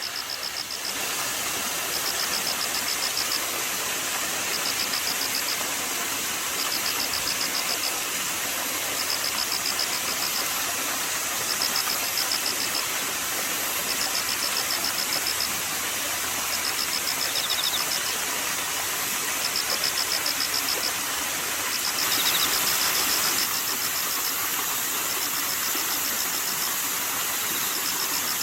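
Steady rush of flowing water, with autumn insects chirping over it in high, pulsed trills about a second long, repeating every second or two.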